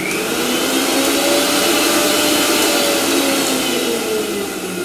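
Mixer grinder's motor switched on and running fast: a loud whirring hiss that starts abruptly, its pitch rising in the first second or two and sagging near the end. The motor is running normally.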